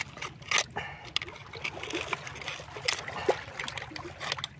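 Shallow seawater trickling and lapping among rocks on the shore, with many scattered small clicks and knocks of shells and stones being handled.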